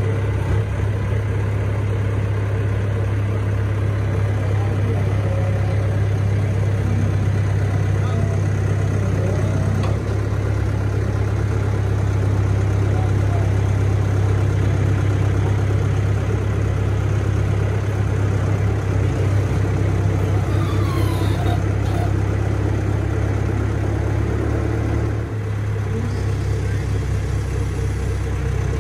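Telehandler's diesel engine running steadily at low speed as the machine creeps forward with a load on its forks. The engine sound drops slightly a few seconds before the end.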